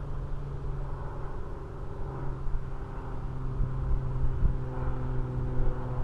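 Brushless electric motor and propeller of an Arrows Husky RC plane on 6S LiPo running steadily on the landing approach: a steady hum of a few tones that shifts slightly in pitch about two seconds in, over wind rumble on the microphone.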